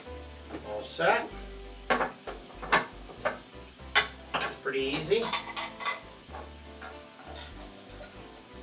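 Ground beef sizzling steadily in a frying pan, with a run of sharp plastic clicks and knocks as a small electric food chopper is opened and handled. It is quieter in the last couple of seconds.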